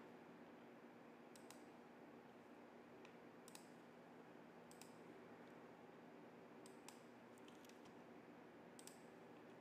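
Near silence: room tone with faint, scattered short clicks, about a dozen, some in quick pairs.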